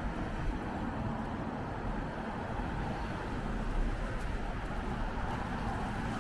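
Steady city street noise of traffic running, with no single vehicle passing by.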